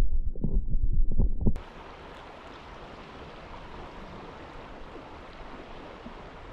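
Muffled low thumping and rumbling of water against a camera held underwater in a creek. It cuts off suddenly about a second and a half in, giving way to the steady, even rush of a shallow creek flowing.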